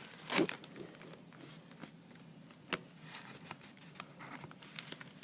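Light handling noises from small plastic items: scattered soft clicks and rustles, with a louder knock about half a second in and a sharp tick near three seconds.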